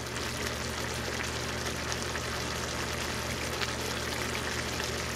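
Shredded chicken in tomato sauce simmering in a cast-iron skillet: a steady bubbling sizzle with fine crackles, over a low steady hum.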